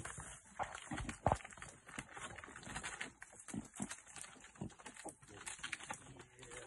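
Irregular scratching, scraping and knocking, the sharpest knock about a second and a half in: a leopard's claws gripping and scraping tree bark as it hauls a carcass up the trunk.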